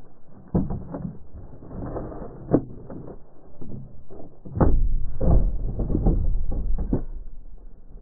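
Handling noise on a plastic fishing kayak: a string of clicks and knocks, then a louder stretch of low bumping and knocks from about halfway through while a smallmouth bass is held over the side to be released.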